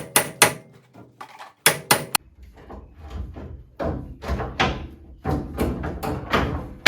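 Sharp metal-on-metal knocks, about four a second, come in two quick runs, then give way to a denser rattling run of knocks over a low rumble. This is tools working a stuck long bolt on the front suspension.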